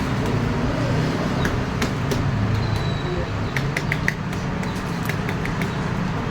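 Steady low rumble of road traffic or a running vehicle, with a few light clicks in the middle.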